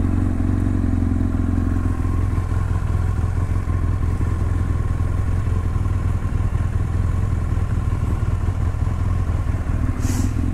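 Motorcycle engine running steadily with a low, even hum, most likely the BMW F800 ST's parallel-twin engine.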